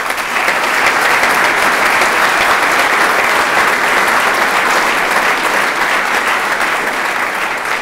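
Audience applauding, steady dense clapping that starts at once and eases off near the end.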